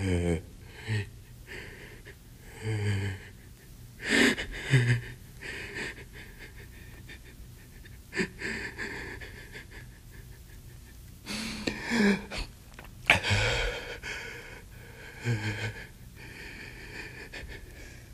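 A performer's breathy vocal sounds: a series of short gasps and sighing breaths, a second or more apart, some with a low voiced tone, between recited lines of poetry.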